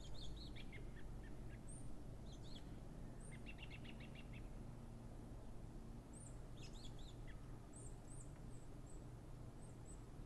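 Faint songbirds chirping. There is a quick run of notes about three and a half seconds in and a cluster of high, thin chirps in the second half, over a steady low background noise.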